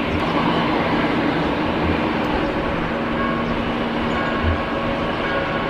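Jet engines of a Boeing 787-10 taxiing, a steady rumble with a few faint held whining tones.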